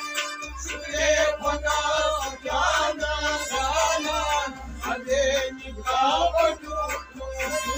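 A man singing a Kashmiri folk song in phrases over harmonium accompaniment, with a steady low rhythmic pulse beneath.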